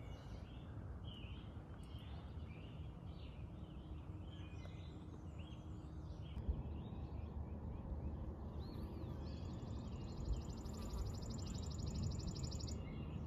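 Wild birds chirping and calling in short, repeated notes over a low steady rumble. About nine seconds in, a high, rapid buzzing trill starts and runs for about four seconds.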